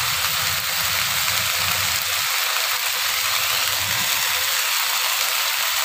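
Chopped onion, capsicum and sauces sizzling in oil in a kadai on the stove: a steady, even hiss with a low hum beneath it.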